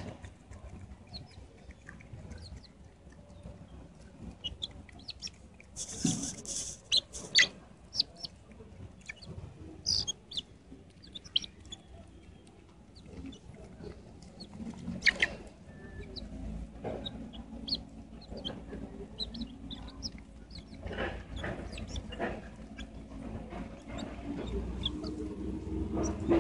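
Young wild chickens clucking and giving short high calls while pecking rice from a hand, with scattered sharp clicks of beaks on grain and pavement. A low rumble comes in about halfway through.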